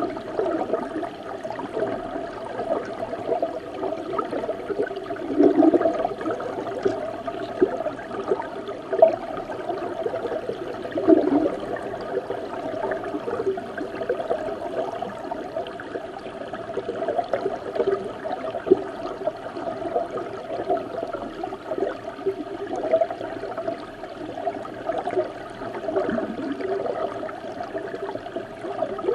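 Flowing river water heard from under the surface: a steady, muffled, bubbling rush with a few louder gurgling surges.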